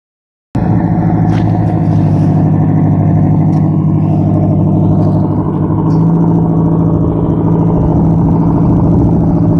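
Small tug boat's engine running steadily, with a slight change in its note about six seconds in.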